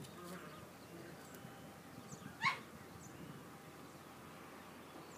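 A six-week-old rough-haired Dutch Shepherd puppy gives one short, high yip about two and a half seconds in while play-wrestling with its littermate.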